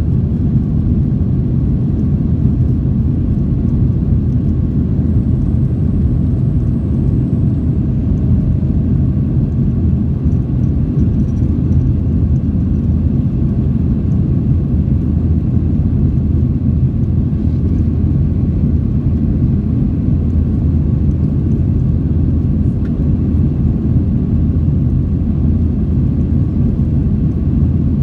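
Steady low rumble of a Boeing 737's CFM56 jet engines and the airflow past the fuselage, heard inside the passenger cabin during the climb after takeoff.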